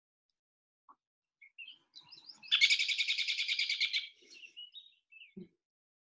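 Recording of an American robin: scattered high chirps, then a rapid run of about twenty sharp notes lasting about a second and a half, then a few softer chirps.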